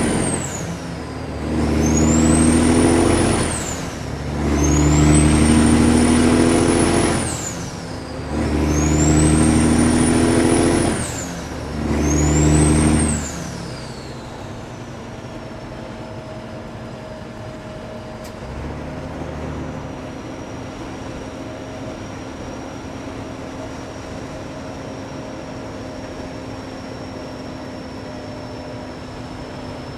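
Kenworth W900's diesel engine with loud pipes pulling hard through a series of upshifts. A high turbo whistle rises in pitch with each pull and drops away at each shift. About 14 seconds in the pulling stops and the engine runs quieter and steady, with a faint whine still there.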